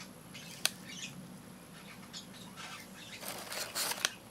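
Shredded paper packing rustling as hands lift plastic vials out of a styrofoam shipping box, with a sharp click about half a second in, then a longer rustle near the end that ends in another click.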